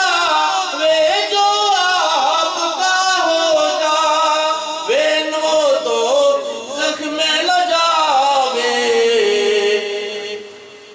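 A man singing a naat, a devotional poem, unaccompanied into a microphone, in long held lines with gliding ornaments; his voice trails off near the end.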